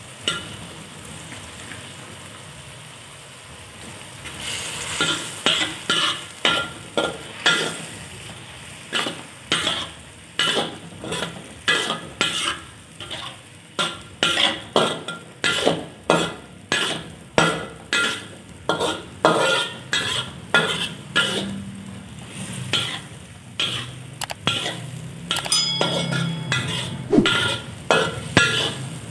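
Metal spatula scraping and stirring in a wok, in repeated strokes about one to two a second starting about four seconds in, over the sizzle of boiled quail eggs frying in a chili, shallot and tomato sauté.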